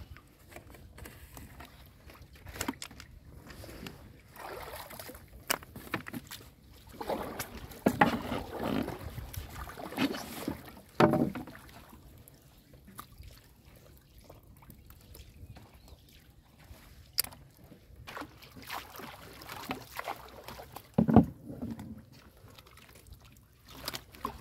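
Hands splashing and rummaging in shallow marsh water among lotus leaves and weeds, with trickling drips and irregular small knocks; the splashing grows louder for a few seconds about a third of the way in, and there is one sharp splash near the end.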